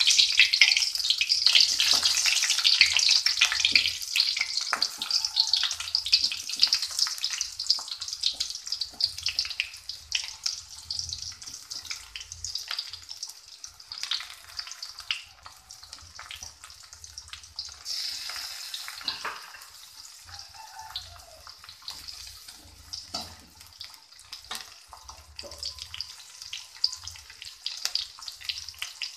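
Sliced onions sizzling and crackling in hot oil, being fried golden brown. The sizzle is loudest at the start, just after the onions go in, and slowly dies down, with a brief swell about two-thirds of the way through.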